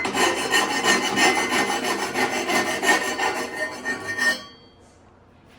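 Hand file rasping back and forth in quick, even strokes on the freshly cut end of steel unistrut channel, deburring it, with a metallic ring. The filing stops about four and a half seconds in.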